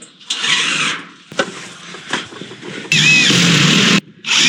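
Cordless drill running in short bursts of about a second, starting and stopping abruptly with a thin squeal, driving screws through old sheet-metal roofing into the wood beneath.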